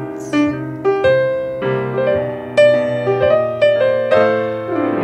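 Grand piano playing an instrumental passage on its own: a line of separately struck notes over held low notes, in the swing style of the song.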